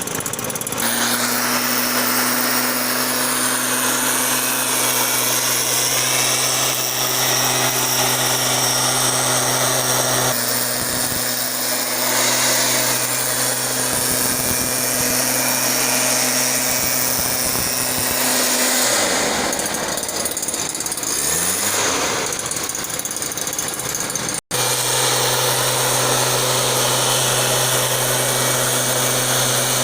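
Small engine of a larviciding spray machine running steadily at speed, with a strong hissing rush. About two-thirds through the engine note drops and wavers for a few seconds; after a momentary break it runs steadily again.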